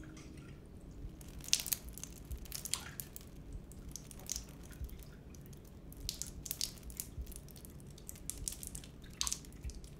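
Faint, irregular clicks and ticks, a few a second, some with a short falling tail, over a low steady room hum.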